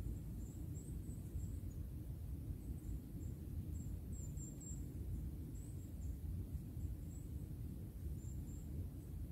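Quiet forest ambience: a steady low rumble with many short, very high-pitched peeps from small birds scattered through it.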